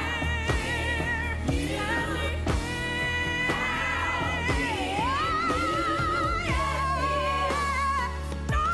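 Background music: a pop-style song with a singing voice holding long, wavering notes over a steady bass and beat. The voice swoops down and back up about halfway through.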